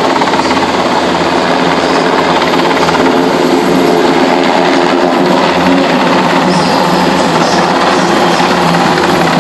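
Helicopter flying overhead, its rotor and engine running loud and steady.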